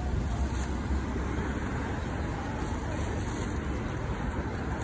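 Steady street traffic noise with a low rumble underneath.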